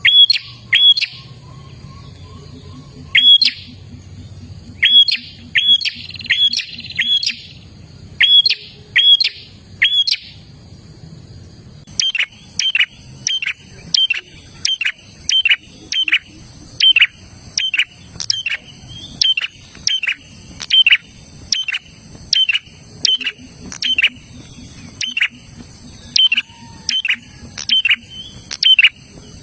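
Prenjak (prinia) calling loudly: sharp, repeated downward-sweeping chip notes, in uneven clusters for about the first ten seconds, then after a short pause a fast steady series of about two notes a second. A faint low hum lies underneath the first part.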